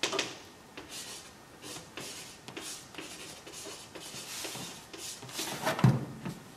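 Irregular light taps and scratching strokes of hands working at a desk, a few a second, with one louder knock near the end.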